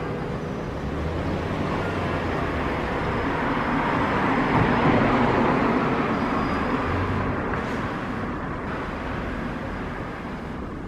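A road vehicle passing in the street, its noise swelling to a peak about halfway and then fading. The last ringing of the church bells dies away just as it begins.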